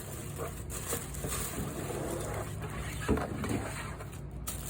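Cardboard box being opened and its packaging handled: rustling and scraping, with a sharper knock about three seconds in, over a steady low hum.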